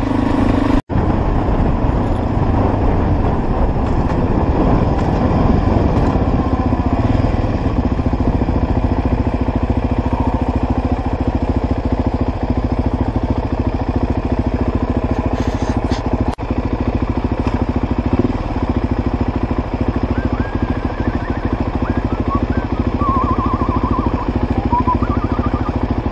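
Suzuki DR-Z400's single-cylinder four-stroke engine running steadily at low revs as the bike slows for a junction and stops at traffic lights. The sound drops out for an instant about a second in.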